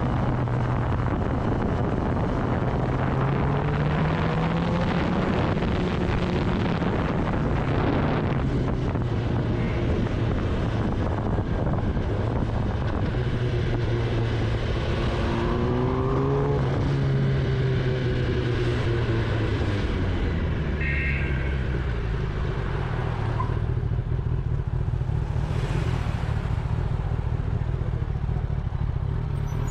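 Kawasaki Ninja ZX-10R's inline-four engine running while riding at street speed. Its pitch climbs and falls as the rider opens and closes the throttle, most clearly a few seconds in and again around the middle, with wind rushing over the microphone.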